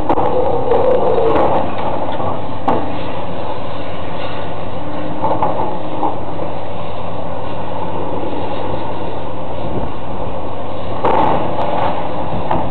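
Heavy demolition machinery running steadily, with bursts of crunching and clattering debris about a second in, a few times in the middle, and again near the end.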